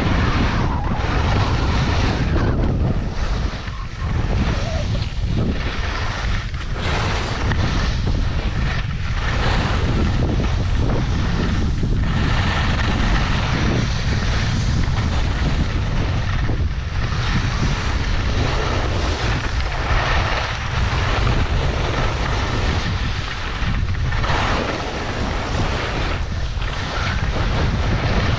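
Wind rushing over the microphone of a skier going downhill: a loud, steady rumble and hiss, briefly dipping now and then.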